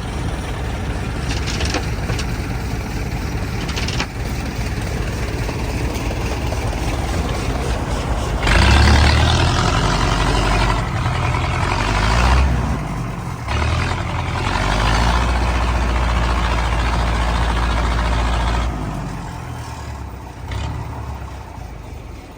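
Heavy farm machine's diesel engine running steadily, then revving hard under load from about a third of the way in for roughly ten seconds before easing off near the end. It is straining to pull a load described as too heavy.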